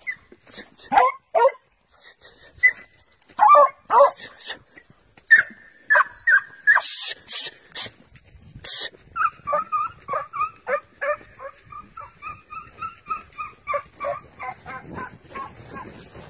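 Hunting dogs yelping and barking in chase after a fox. Scattered yelps and short bursts of hiss come in the first half, then from about nine seconds in a fast run of high yips, about three or four a second.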